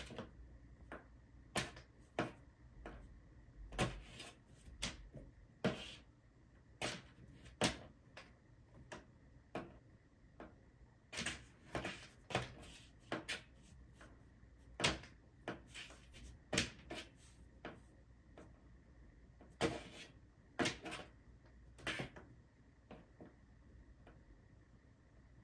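A kitten's paws and claws batting and scratching at the side of a cardboard box: irregular taps and scrapes in clusters, with short pauses between bouts.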